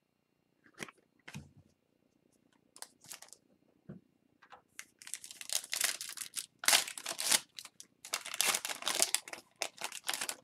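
A foil hockey-card pack wrapper being torn open and crinkled by hand. A few light clicks and rustles come first, then from about five seconds in there are dense spells of crackling.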